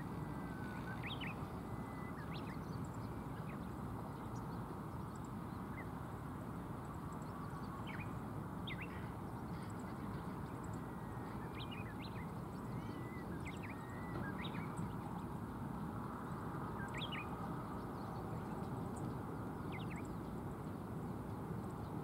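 Steady rushing of river water over shallow rapids, with a dozen or so short, high bird calls scattered through it.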